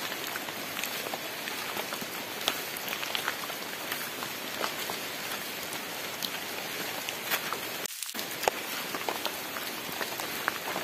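Steady rain falling on leaf litter and wet ground: a constant hiss with many scattered sharp drop ticks.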